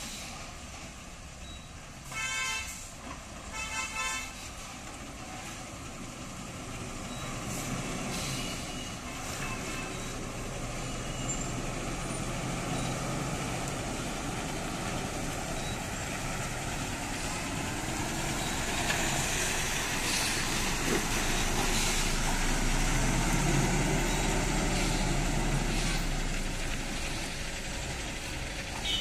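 Two short vehicle-horn blasts a couple of seconds apart, then an overloaded multi-axle lorry's diesel engine running under load, growing louder as the truck comes round the bend and passes close, loudest near the end.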